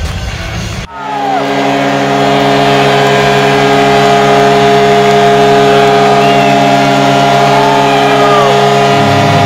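Vancouver Canucks arena goal horn blowing one long, steady blast that starts about a second in, just after a cut from music. It marks a Canucks goal, and the crowd cheers and whistles under it.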